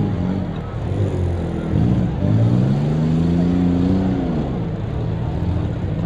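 Six-cylinder demolition derby car engines revving up and down several times, the longest rev held for about two seconds in the middle before falling away.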